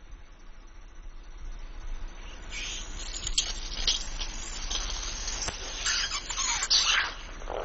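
A car tyre slowly squashes a rubber squeeze toy full of yellow liquid, which squirts out in a run of hissing spurts and spatters onto the asphalt. There is a sharp click a little over three seconds in, and the spurts are loudest near the end.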